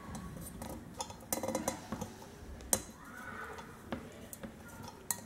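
Wooden handle being screwed into the brass socket of a copper cezve (Turkish coffee pot): scattered small clicks and taps of wood and metal as the handle is turned, the sharpest click a little before three seconds in.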